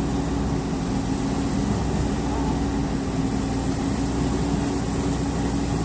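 JCB excavator's diesel engine running steadily, a constant low hum with no change in speed.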